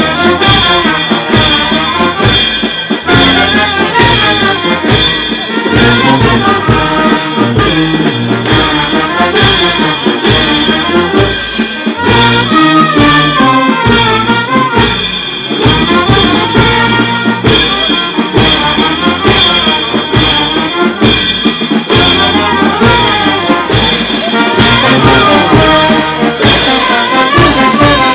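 Brass band playing a Negritos dance tune: trumpets and sousaphone carry the melody over a bass drum and clashing cymbals keeping a steady beat.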